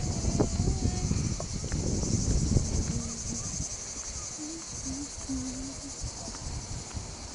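A steady, high chirring chorus of insects in summer vegetation, over a low uneven rumble of wind and movement noise.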